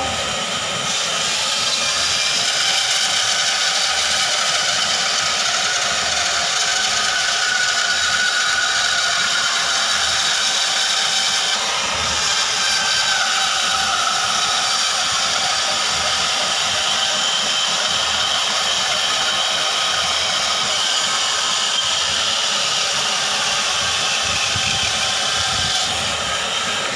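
Power saw cutting curved shapes in wood: a steady motor-and-blade noise, its pitch drifting slightly as the cut loads it.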